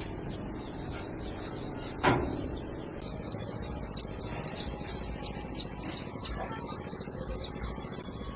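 A single sharp knock about two seconds in. A second later an insect starts a steady, high-pitched trill that holds until near the end.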